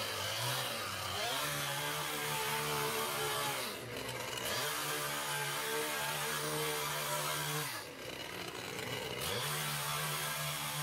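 Small gas-powered mini-tiller (rototiller) engine running at high revs as its tines churn soil. Twice, about four and eight seconds in, the engine drops in pitch and then revs back up.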